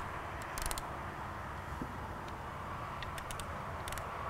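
Ratchet wrench clicking in three short runs of rapid clicks as the bolts of a transmission's input shaft retaining collar are run down, over a steady background hum.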